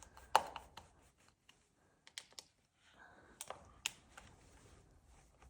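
Scattered light clicks and scrapes of a screwdriver working on a Gira wall switch insert's two fixing screws. The sharpest click comes about a third of a second in, with a few more between two and four seconds in.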